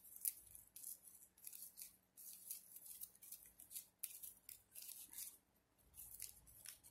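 Faint rustling and crinkling of shiny ribbon as hands pull, fold and tuck its strips into a ribbon flower: many short, irregular scratchy strokes.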